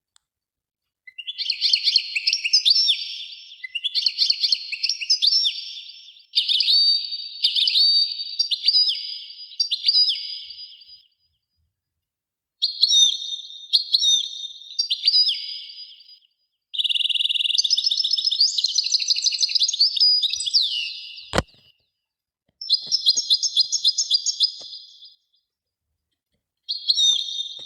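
A songbird singing in repeated high-pitched phrases of rapid chirps and trills, each lasting a few seconds with short pauses between. There is a single sharp click a little past two-thirds of the way through.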